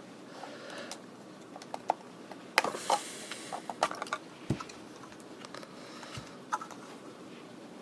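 Handling noise from a small plastic transistor radio: scattered light clicks and taps, with a short scrape about two and a half seconds in.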